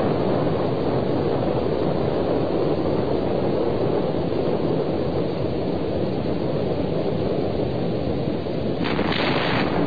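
Deep, continuous rumble of a nuclear explosion, an even noise with no separate bangs. About nine seconds in, a brighter hiss joins it briefly.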